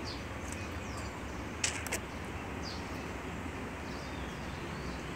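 Steady outdoor background hiss with faint, short high bird chirps every second or so. A brief sharp click comes about a second and a half in.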